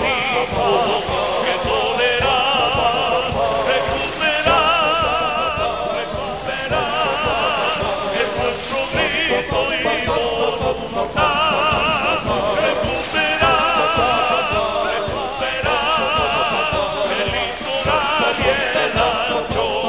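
A Bolivian folk band plays live. A sung melody with strong vibrato comes in phrases over a steady drum beat.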